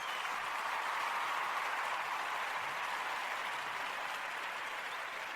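Applause, an even clapping noise that swells in and then slowly tapers off.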